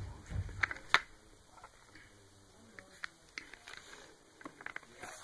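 Plastic DVD cases being handled: a dull handling bump at the start, then two sharp clicks just under a second in and scattered light ticks as the cases knock against each other.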